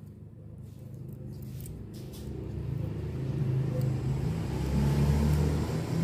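Low rumbling handling noise from fingers rubbing over the phone's microphone while the washing-machine motor stator is handled, growing louder about two seconds in.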